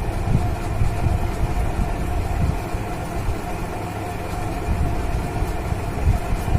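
Steady mechanical hum over a continuous low rumble.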